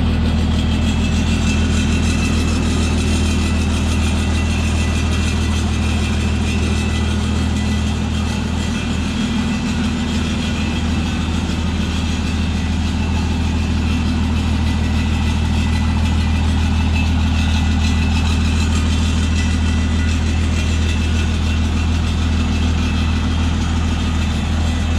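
Oliver 77 Standard tractor's six-cylinder engine running steadily at an even speed, exhausting through an aftermarket muffler that replaced the original under-hood muffler.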